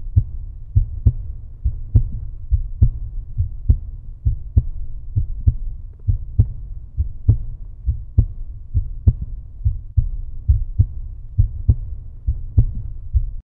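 Outro music: a deep, thumping bass beat with no melody, a little over two beats a second, cutting off abruptly at the end.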